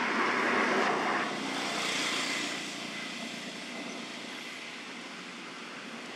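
Steady rushing noise without clear tones or knocks, loudest in about the first second and easing off after that.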